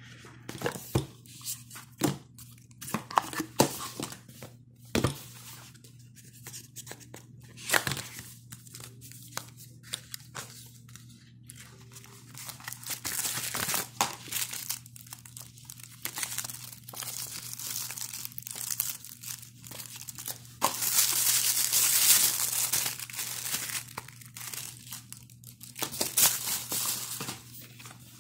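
Hands handling a smartphone's retail packaging: cardboard box knocks and slides in the first few seconds, then plastic wrap and packing material crinkling and rustling, loudest in a long stretch a little past the middle.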